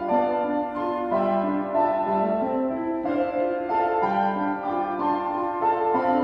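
Solo piano playing a melody over sustained chords, with notes changing about every half second.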